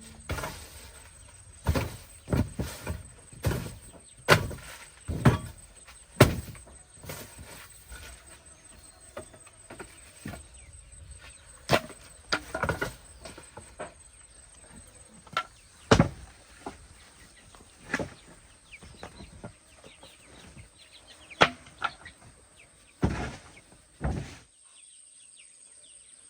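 A series of sharp knocks or thuds at an irregular pace, roughly one every second, stopping shortly before the end.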